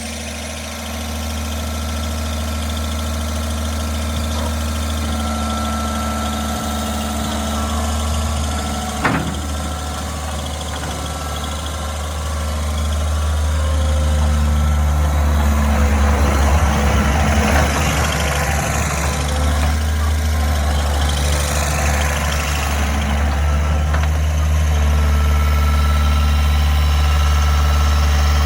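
Diesel engine of a 2004 Komatsu wheeled skid steer running steadily, with a single sharp knock about nine seconds in. From about thirteen seconds it runs louder, with a rise and fall in pitch between about eighteen and twenty-two seconds.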